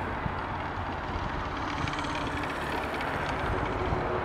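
Zip-line trolley running along its steel cable: a steady rolling rattle, with a finer ticking from the pulley wheels around the middle.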